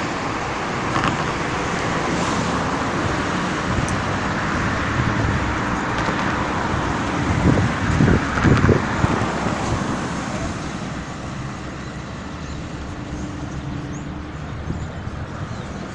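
Road traffic noise: cars passing on an open road, loudest as one drives close by about halfway through, then settling to a lower, steady level.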